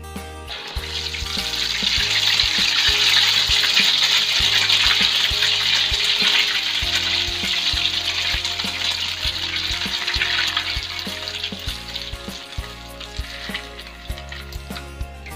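Beaten egg poured into hot cooking oil in a wok, sizzling loudly: the sizzle swells up about half a second in and dies down gradually over the last few seconds. Background music with a steady beat plays underneath.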